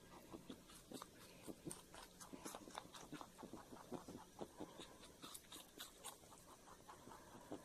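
Rabbit chewing and crunching red bell pepper: faint, quick, irregular crunching clicks, several a second.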